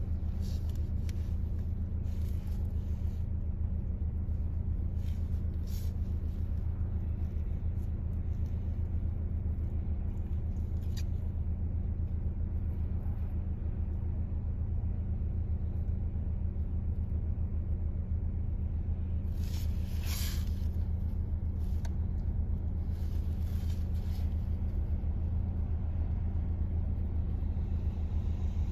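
Steady low engine drone with a constant hum, heard from inside a car's cabin, with a brief hiss about twenty seconds in.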